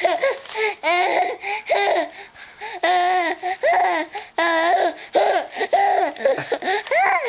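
Baby laughing in a run of short, high-pitched bursts.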